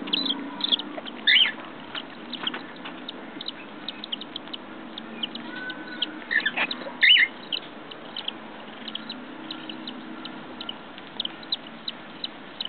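Newly hatched cockatiel chicks peeping and chirping in the nest: a string of short high chirps, with a few louder rising calls about a second in and again around seven seconds.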